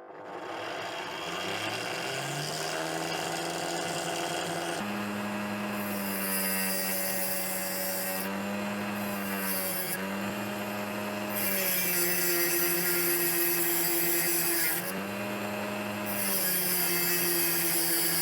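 Homemade sander driven by a meat grinder motor, running with a steady hum while a workpiece is pressed to the abrasive in several bouts, each bringing a loud grinding hiss that stops and starts again.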